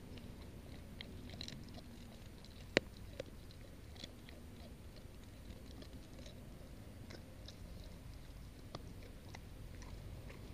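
A dog chewing a meat treat: irregular wet clicks and crunches of its jaws, with one sharper crunch just under three seconds in.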